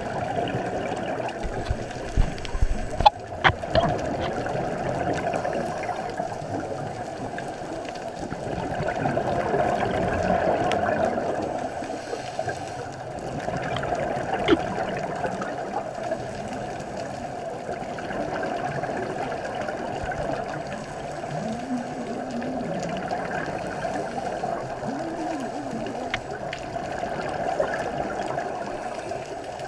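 Underwater sound of scuba divers' exhaled bubbles, picked up by a camera underwater, bubbling and rumbling in slow surges every few seconds. A cluster of sharp knocks comes about three seconds in.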